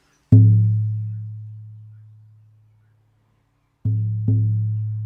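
Buffalo shamanic hand drum struck once, with a deep booming tone that rings and fades over about two seconds. Near the end it is struck twice more in quick succession.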